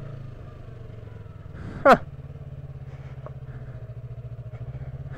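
2015 Yamaha R3's parallel-twin engine running steadily at low revs, with one brief, sharp sound about two seconds in.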